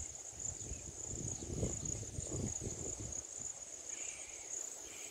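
Steady high-pitched chirring of insects in the grass, running without a break. Low rumbling on the microphone about one to three seconds in.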